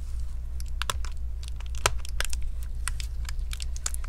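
Asus Zenbook 13 UX331 battery pack being slid into its slot in the laptop's chassis by hands in nitrile gloves: a scatter of small plastic clicks, taps and scrapes as it is worked into its latches, over a steady low hum.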